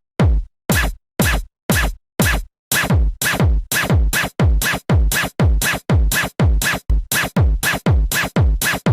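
Electronic dance beat of punchy drum-machine kick hits, each dropping in pitch, about two a second at first, then quickening to about three a second from roughly a third of the way in.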